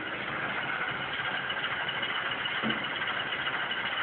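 Model locomotive sound decoder playing its diesel prime-mover sound through the locomotive's small speaker, a steady idle that grows slowly louder. The sound resembles an Alco diesel engine.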